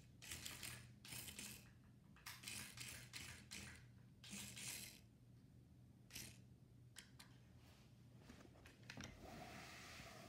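Pocket-sized RC toy car's tiny electric motor whirring faintly in short spurts of a fraction of a second each as it is driven in bursts across a wooden tabletop, about a dozen times. Near the end comes a brief rustle of handling.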